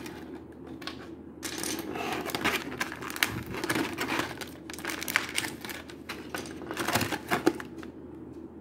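Clear plastic clamshell tray crackling and clicking as it is flexed and handled around an action figure, busiest from about a second and a half in until near the end.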